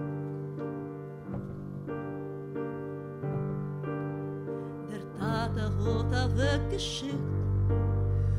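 Piano playing slow, sustained chords; about five seconds in a woman starts singing over it with a wide vibrato, and deep bass notes sound beneath her voice.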